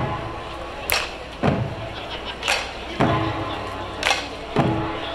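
Korean pungmul drumming on buk barrel drums, played in a slow, even beat: a heavy deep hit about every one and a half seconds, with a sharper, brighter hit halfway between each.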